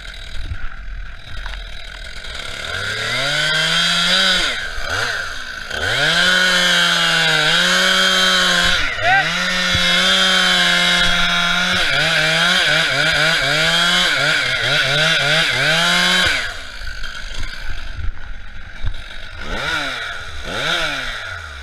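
Stihl MS441 two-stroke chainsaw revved up and held at full throttle cutting into a poplar trunk, its pitch sagging briefly several times under load. It drops back to idle about sixteen seconds in, with one more short rev near the end.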